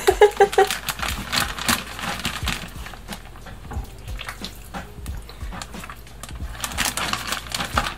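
Plastic zip-top freezer bag crinkling and rustling in irregular crackles while raw turkey breasts are handled and pushed into it, busier again near the end. A brief voice sounds right at the start.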